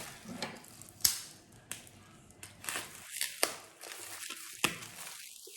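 A parcel being unwrapped: crinkling, rustling packaging and cardboard, with several sharp snaps and cracks along the way.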